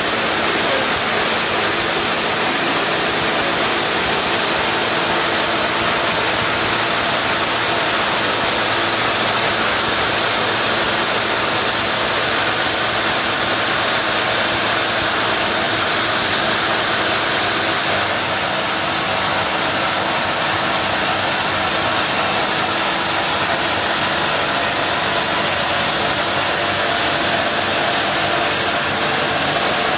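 Hydraulic drill jumbo working at a tunnel face: a loud, steady machine noise with no let-up.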